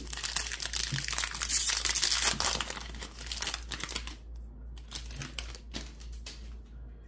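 Foil trading-card booster pack crinkling loudly as it is torn open and the cards are pulled out, for about four seconds. Then it goes quieter, with a few soft clicks from the cards being handled.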